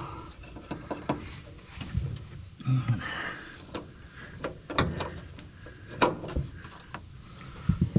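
Scattered small metal clicks and knocks from a pin and cotter pin being worked by hand into the Willys CJ2A gas pedal linkage, with some rustling in the cramped footwell.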